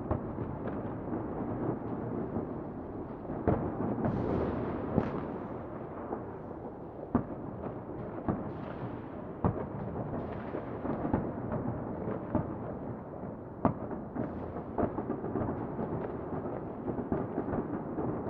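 New Year's Eve fireworks going off: a continuous rumbling din of distant explosions and crackle, with about five louder, sharp bangs scattered through it.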